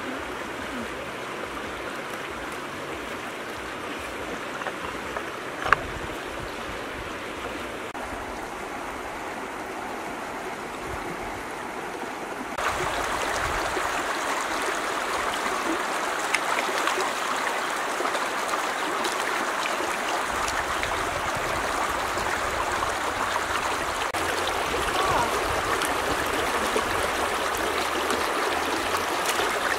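Shallow river flowing over rocks, a steady rush and trickle of water that becomes louder and closer about halfway through. A single sharp knock about six seconds in.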